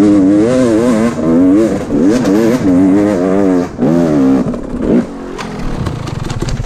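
Enduro motorcycle engine heard close up from the rider's onboard camera, revving up and down with the throttle on a steep forest climb. About five seconds in it drops to a low, uneven run.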